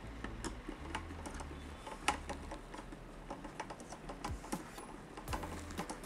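Irregular light clicks and taps of hard computer parts being handled as a tower CPU air cooler is fitted, with a low rumble of handling coming and going underneath.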